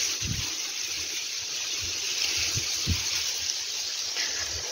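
Steady rushing hiss of wind across the microphone, with a few low buffeting thumps.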